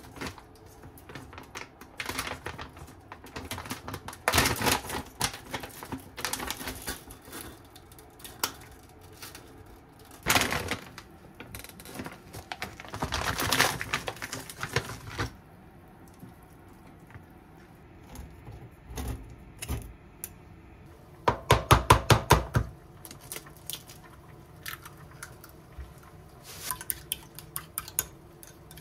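Kitchen handling sounds: rustling and the clatter of dishes and cookware. About two thirds of the way through, a quick run of about eight sharp clacks of a utensil against a small ceramic bowl, and lighter clacks near the end, as an egg is beaten.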